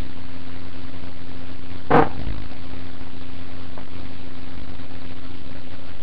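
A steady mechanical hum with a single short knock about two seconds in.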